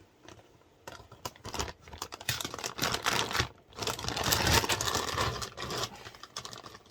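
Plastic bag of power-supply cables being opened and handled: crinkling and rustling in bursts with small clicks, loudest through the middle.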